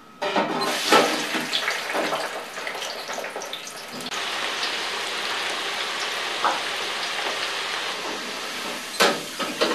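Frozen chips deep-frying in oil at 180 °C in an electric fryer: a sizzling hiss that starts suddenly, crackly at first, then settling into a steady, even hiss about four seconds in. A couple of sharp knocks near the end.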